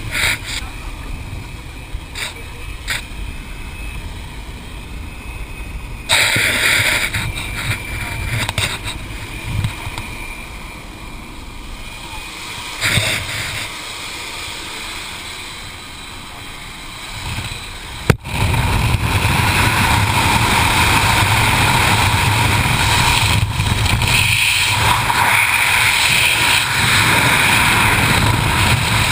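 Jump plane cabin noise with knocks and rustling as skydivers shift toward the open door. About 18 seconds in it gives way to a loud, steady rush of freefall wind on a helmet-mounted camera's microphone as the jumpers exit.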